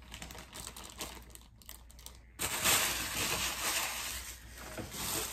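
Plastic packaging crinkling and rustling as it is handled. The sound starts suddenly about two and a half seconds in, after a few light clicks.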